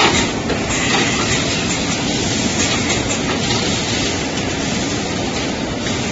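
2D CNC wire bending machine running: a steady mechanical rattle and hiss, with a couple of sharp clicks in the first second.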